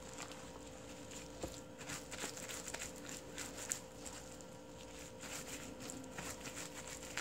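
Gloved hands rubbing chili seasoning paste into salted napa cabbage leaves for kimchi: irregular wet squishing and slapping of the leaves in the basin.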